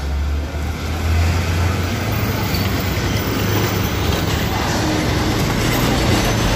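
Loaded Mitsubishi Fuso FN-series diesel dump trucks driving past in convoy, with a steady low engine drone and road noise.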